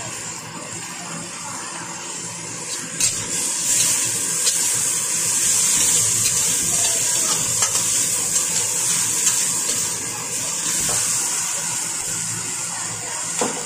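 Carrot, onion and chili sizzling in a stainless steel wok while being stir-fried, with a metal spatula scraping and clicking against the pan. The sizzle gets louder about three seconds in.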